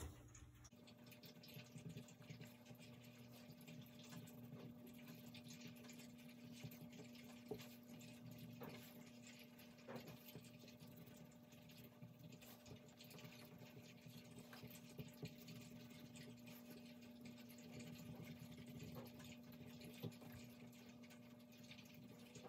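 Faint scratching of a wax crayon being scribbled across paper to color in, with small irregular ticks, over a low steady hum.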